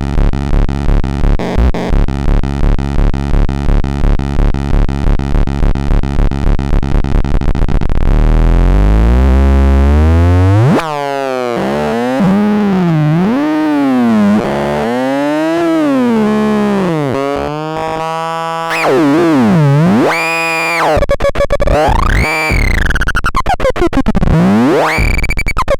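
Techno Station TS1 synthesizer: a fast repeating buzzy pulse that speeds up over the first eight seconds, then a rising bass sweep, then tones that glide up and down in swooping arcs, reaching higher toward the end.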